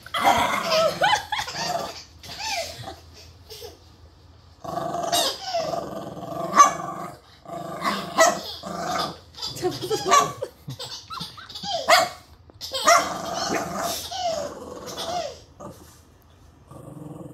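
Small dog growling and barking in play, in about five bursts of one to three seconds each with short pauses between.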